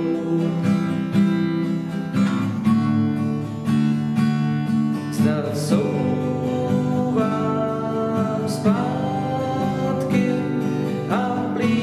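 Steel-string acoustic guitar strummed in a steady rhythm, with the chord changing roughly every three seconds.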